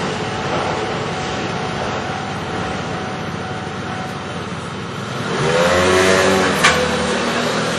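Steady traffic hum, then about five seconds in a motor vehicle's engine revs up, its pitch rising as it pulls away, with a single sharp click near the end.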